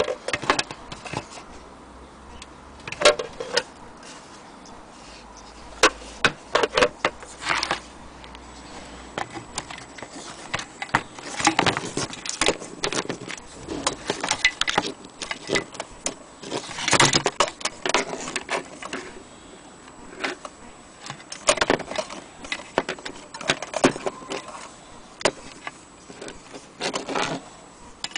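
Old brass lantern being handled and turned over: its metal parts clink, rattle and knock in scattered clusters of sharp clicks.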